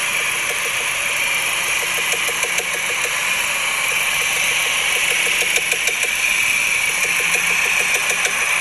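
Porsche Macan SUV's engine running with a fast, even ticking knock over a steady hum: the intermittent abnormal noise that the owner likens to a tractor, its cause not yet found by the dealer.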